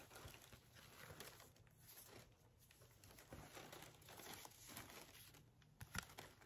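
Faint rustling of a knit shirt and its card hang tag being handled, with a sharp click about six seconds in.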